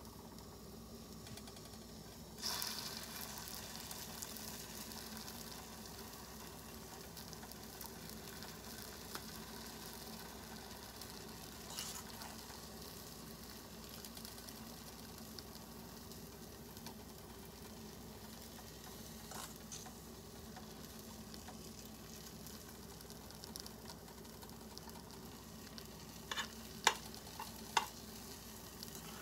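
Radish cakes frying in bacon grease in a pan: a steady faint sizzle that grows louder about two and a half seconds in as more mixture goes into the pan. A fork clicks lightly against the pan a few times, most sharply near the end.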